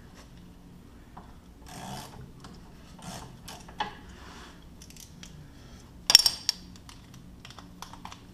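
Metal hand tools and hardware clinking and scraping while the UTV's rear sway bar link is being worked loose, with a sharp ringing metallic clank about six seconds in.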